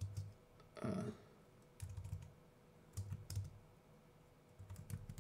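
Typing on a computer keyboard: a few short runs of keystrokes with pauses between them, as a search term is entered.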